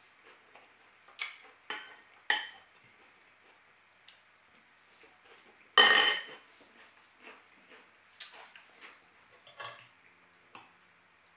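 Metal cutlery clinking and scraping against ceramic plates and a salad bowl: a few sharp clinks, one much louder clatter about six seconds in, then lighter knife-and-fork clicks while cutting food on the plate.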